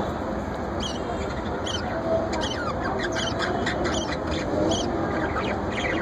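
Small cage birds chirping in an aviary: many quick, short, high calls, busiest through the middle, over a steady background hiss.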